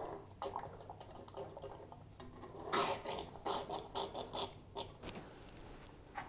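Small plastic bottle of tubeless tyre sealant squeezed into a fat-bike tyre through the valve stem with its core removed: irregular creaks, clicks and squirts of liquid, the loudest about three seconds in.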